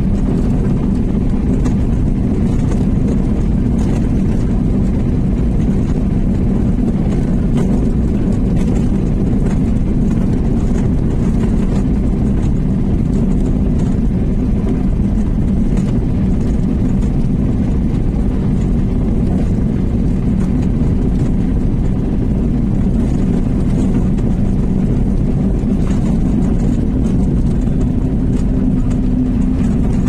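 Steady low rumble of a car's engine and tyres heard from inside the cabin while driving at an even speed.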